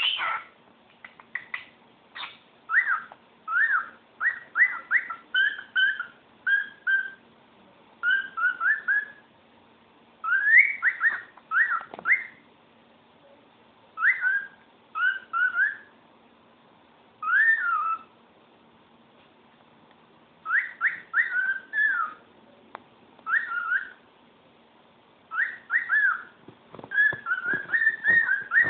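Cockatiel singing: phrases of short whistled notes that rise and fall, broken by pauses of a second or two. A few soft knocks are heard near the end.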